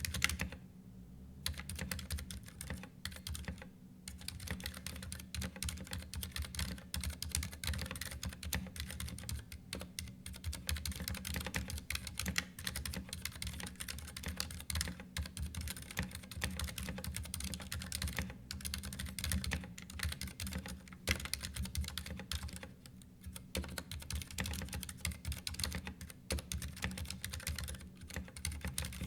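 Continuous typing on a Ducky One 2 Mini 60% mechanical keyboard: a dense, steady stream of key clicks, with brief pauses about a second in, around four seconds and around 23 seconds.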